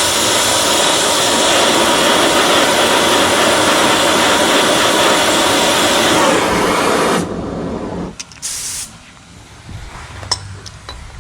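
Blowtorch flame hissing steadily while it heats a rusted exhaust flange rivet nut red hot, to destroy the ring that holds it in. The torch cuts off about seven seconds in, followed by a brief hiss and a few light clicks.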